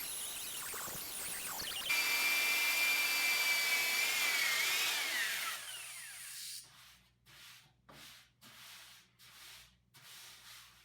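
Electric power tool working old body filler off a steel fender, its whine winding down about five seconds in. Then hand-sanding strokes, about one a second.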